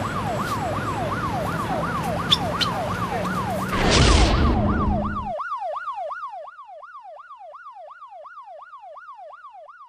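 Emergency-vehicle siren sound effect, a quick yelp sweeping up and down about twice a second. A loud whoosh comes about four seconds in; soon after, the outdoor background cuts off and the siren carries on alone, quieter, fading out at the end.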